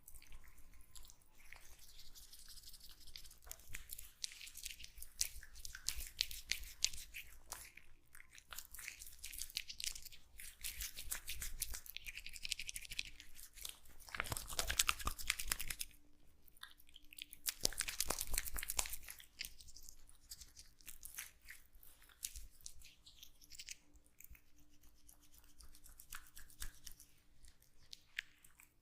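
Hands rubbing and scrubbing a person's face close to the microphone: dense crackling rubbing strokes in uneven bursts, loudest about halfway through and again a few seconds later.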